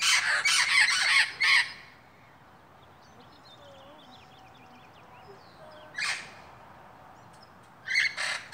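Amazon parrots squawking: a quick run of loud, harsh calls in the first second and a half, a single call about six seconds in, and another run starting near the end.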